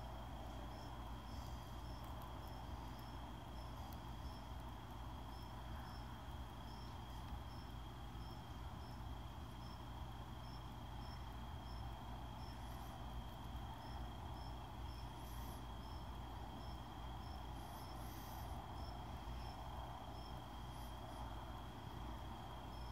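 Faint outdoor insect chorus at dusk: a cricket chirping steadily, about two to three short chirps a second with a few pauses, over a steady high whine and a low hum, with a few brief higher buzzes from other insects.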